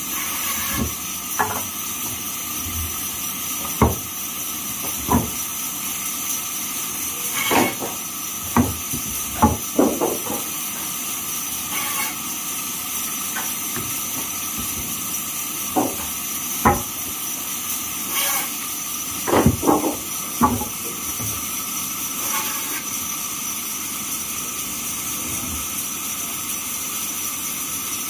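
Large sawmill band saw running with a steady hiss and a constant high whine. Sharp wooden knocks from sawn planks being handled on the carriage table come singly and in quick clusters, most of them in the middle of the stretch.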